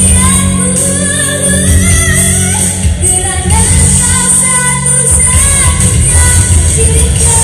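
A young boy singing a Malay pop song into a microphone over a loud amplified backing track with a heavy, steady bass, his voice gliding between held notes.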